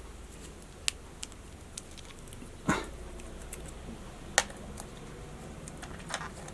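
Scattered small clicks and taps of screws and parts being handled while a ZEKE M-10 Military & Police model revolver is taken apart, with a duller knock about two and a half seconds in and a sharp click a little past four seconds.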